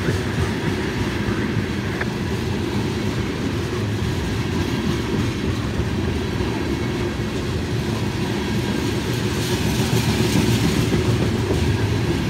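Tank cars of a long freight train rolling past: a steady rumble of steel wheels on the rails, which grows a little louder and brighter about ten seconds in.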